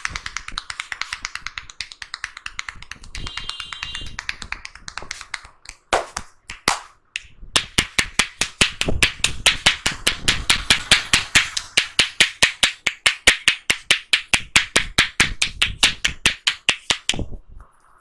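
A barber's hands tapping rapidly on a customer's head during an Indian head massage. A fast, dense run of softer taps gives way, after a short gap, to louder, evenly spaced sharp taps several a second, which stop just before the end.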